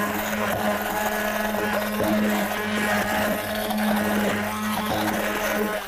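Hand-held immersion blender running at a steady, even pitch in a glass bowl, puréeing an oily lemon, herb and spice marinade into a smooth liquid. It cuts off right at the end.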